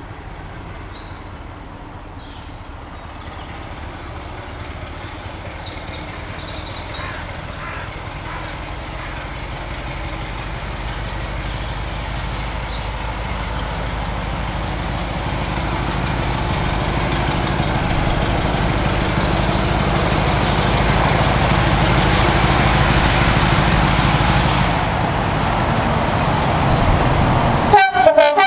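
British Rail Class 33 diesel locomotive 33063 approaching, its Sulzer eight-cylinder engine running and growing steadily louder as it nears. A brief loud burst comes near the end.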